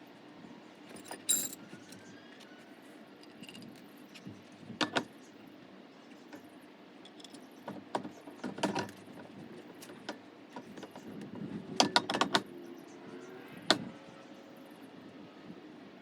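Metal hand tools and suspension parts clinking and knocking, in scattered sharp strikes with a quick cluster about twelve seconds in.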